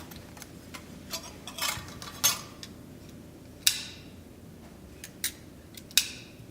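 Small sharp clicks and taps of camera parts and small tools being handled while a medium-format camera body is worked on. There are lighter ticks throughout and three louder clicks with a brief ring, at about two, three and a half and six seconds in.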